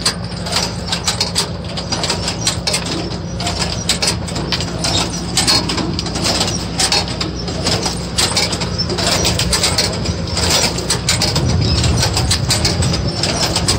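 Tractor-drawn vegetable transplanter planting cabbage seedlings: a steady engine hum under a dense, continuous clatter and clicking from the planter's moving parts.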